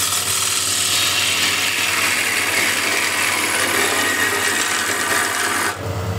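A gouge cutting the inside of a spinning wooden bowl on a wood lathe: a steady hiss of shearing wood over the lathe motor's hum. The cut stops suddenly near the end, leaving only the motor hum.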